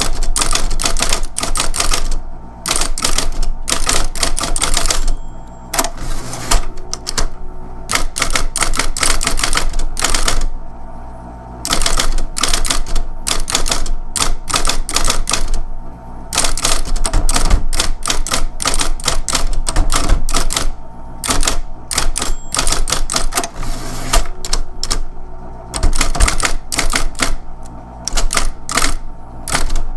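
Electric typewriter typing in quick runs of key strikes, broken by short pauses every few seconds and a longer one about ten seconds in. The machine's motor hums steadily underneath.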